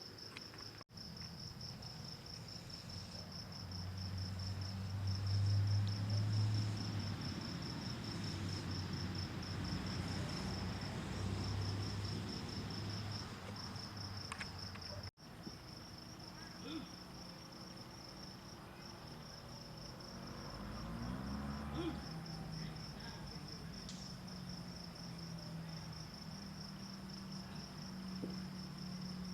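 Crickets chirping in a steady, high, pulsing trill, over a low rumble that swells for a few seconds near the start.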